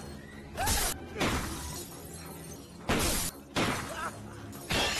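A car being smashed by attackers: about four heavy blows land on the bodywork, with glass shattering.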